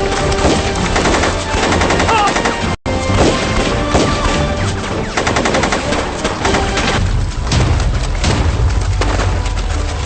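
Rapid, sustained gunfire from several guns, including fast strings of automatic fire, in a film battle scene. The sound cuts out for an instant about three seconds in.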